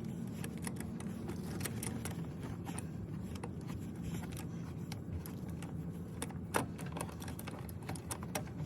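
Metal clinks and clicks of lug nuts and a wrench as a spare wheel's lug nuts are fitted and tightened, one click louder about two-thirds through, over a steady low hum.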